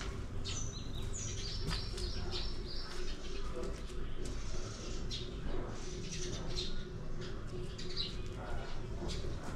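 Small birds chirping, with a run of high whistled notes in the first few seconds and scattered calls after, over a steady low rumble.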